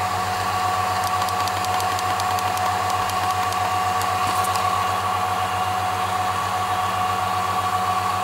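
Vacuum pump running steadily, a constant hum with a couple of fixed tones, with faint rapid ticking in the first half.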